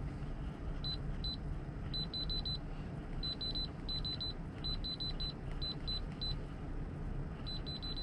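Control panel of a Change Moore 12 V portable fridge beeping with each button press as the temperature setting is stepped. The beeps are short and high, singly and in quick runs, over a low steady hum.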